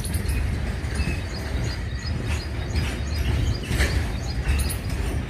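Double-stack freight train rolling past: a steady low rumble with irregular clacks of wheels on the rails.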